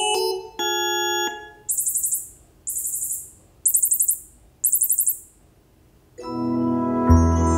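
Sony HT-A7000 soundbar's room-calibration test sounds, as its built-in microphone measures the room for surround sound. It opens with a short chime of tones. Then come four bursts of very high, rapidly stuttering chirps about a second apart, and a swelling chord with deep bass comes in near the end.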